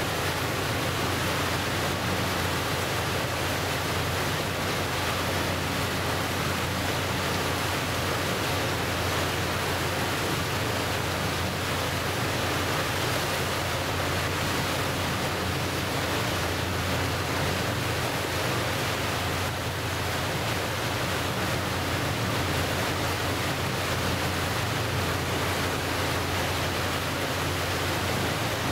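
Steady rushing of water and wind around a moving passenger boat, with a low, even engine hum underneath.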